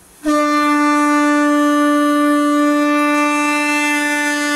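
A shofar blown in one long, steady blast that starts about a quarter second in and holds a single unwavering note.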